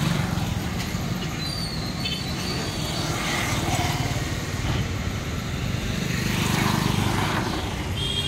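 Motor vehicle engine running, the noise swelling twice, once about three seconds in and again near the end.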